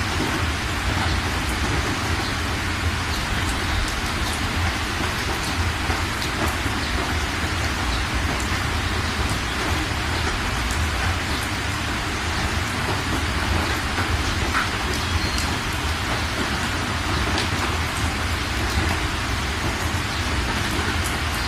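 Heavy rain falling steadily: a dense, even hiss with a low rumble underneath and scattered sharp drop ticks close by.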